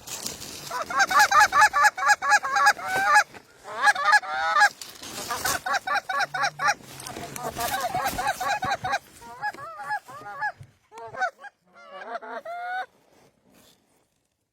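Goose honking calls, many in quick succession and overlapping, loud at first, then thinning out and stopping near the end.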